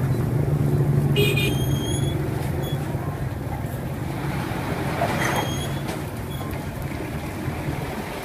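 Street traffic noise, with a motor vehicle's engine running close by. The engine is loudest in the first two seconds and eases off after, and there is a brief high squeal about a second in.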